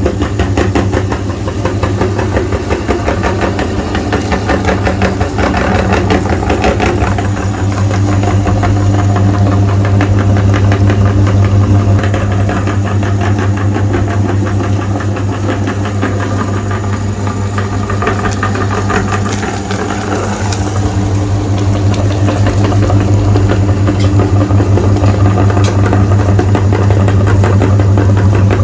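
Electric meat grinder running steadily: a loud motor hum with a fast, even rattle.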